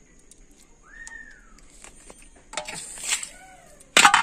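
Steel dishes clattering sharply near the end as raw fish pieces are handled in a steel plate, after a few softer handling noises. A short high call that rises and then falls is heard about a second in.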